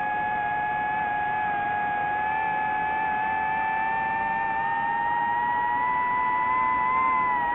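DJI FPV drone's motors and propellers whining steadily in flight, the pitch creeping slowly upward.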